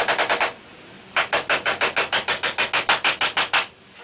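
A hand tool worked quickly back and forth against the wooden roof framing, making loud, evenly spaced strokes about eight a second: one short run that stops about half a second in, then a longer run from just after a second until shortly before the end.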